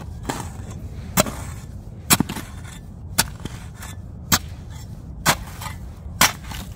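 Long-handled shovel chopping into a hard-packed, old snowbank: six sharp strikes, about one a second.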